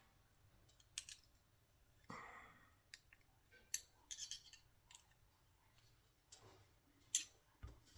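Faint, scattered clicks and light taps of small hardware and hand tools being handled during RC helicopter assembly, with a soft rustle about two seconds in.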